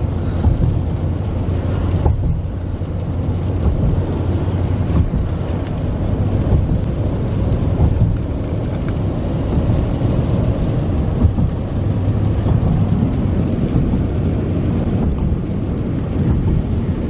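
Steady low road and engine rumble heard inside a vehicle driving on rain-wet pavement.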